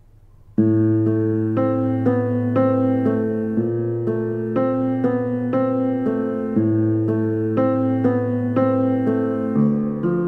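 Background music: keyboard notes struck evenly, about two a second, over a held bass note that shifts every few seconds; it starts abruptly about half a second in.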